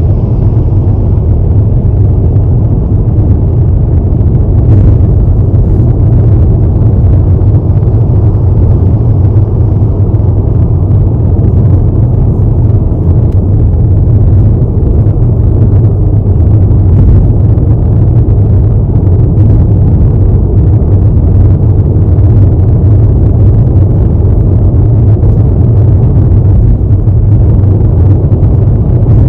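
Car driving at highway speed: a steady, loud, low road rumble that does not change.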